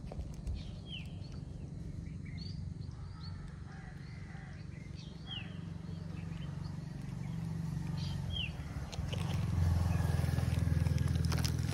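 Small birds giving short, sharply falling chirps now and then, over a steady low rumble that grows louder about three-quarters of the way through.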